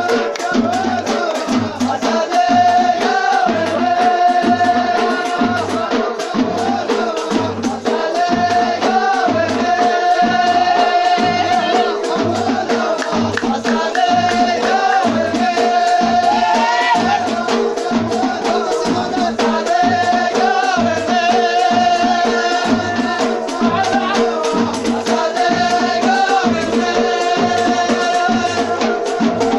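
Folk music with a steady drum beat and rattling percussion under a long-held, ornamented melodic line.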